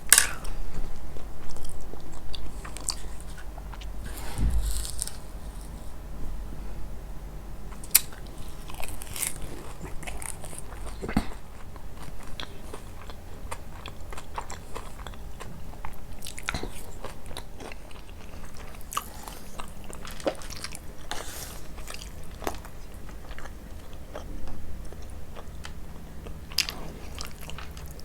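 Close-miked eating of crisp kunafa: bites into the crunchy shredded-pastry crust and chewing, with scattered sharp crunches and crackles throughout.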